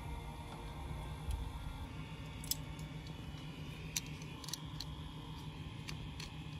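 Light metallic clicks and ticks of steel wire rope and a stainless steel rigging fitting being handled, a few scattered clicks from about two and a half seconds in, over a low steady rumble.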